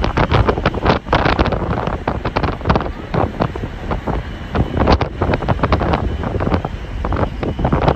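Strong wind buffeting a phone's microphone on the open deck of a moving ferry, in irregular gusts.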